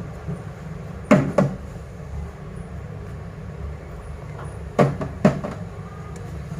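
Four sharp knocks in two pairs, a few seconds apart, over a steady low hum. They are hard objects knocking on a hard surface.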